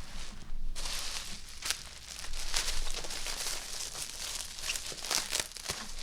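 Packaging being handled and pulled apart, a dense crinkling and rustling with many small crackles that starts about a second in.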